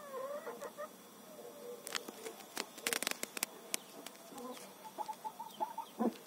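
Scattered sharp clicks and knocks of movement and handling in a chicken coop, with a wavering animal call at the start and a quick run of short high calls about five seconds in.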